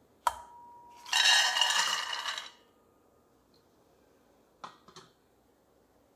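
Raw peanuts poured into an empty aluminium pot, clattering and rattling against the metal for about a second and a half, just after a sharp clink with a brief ring. Two light clicks follow near the end.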